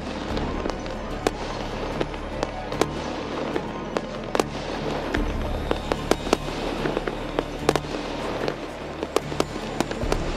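Fireworks display: a dense, irregular run of sharp bangs and crackles, several a second, with music playing underneath.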